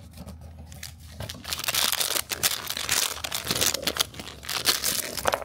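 Shiny plastic foil blind-bag packet crinkling and tearing as it is pulled open by hand, the crackling loud and dense from about a second in.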